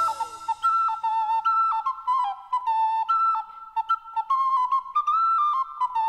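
Instrumental music: a wind instrument plays an unaccompanied melody of short and held notes in a high, pure-sounding register.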